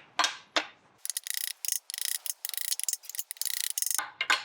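Ratchet wrench clicking: a few separate clicks, then about three seconds of rapid, continuous clicking.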